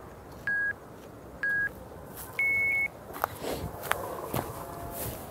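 Apple Watch workout countdown: two short beeps about a second apart, then one longer, higher beep as the walk workout starts. After that, a few scattered footsteps and clicks.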